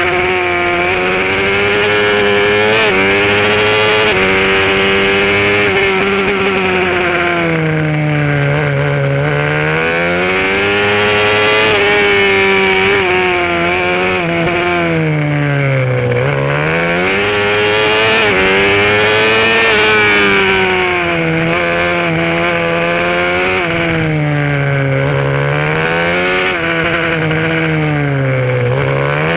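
Supermotard racing motorcycle engine heard from a camera on the bike, revving hard and rising in pitch on the straights, then falling away sharply about four times as the rider brakes and downshifts for corners.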